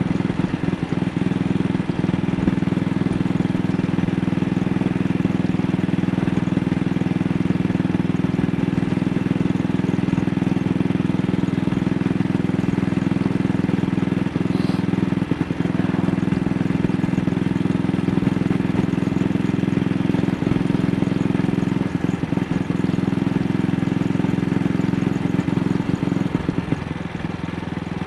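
AJS Model 8 single-cylinder engine running steadily on a light throttle while riding, its beat broken now and then by uneven stutters: a misfire at slight throttle opening.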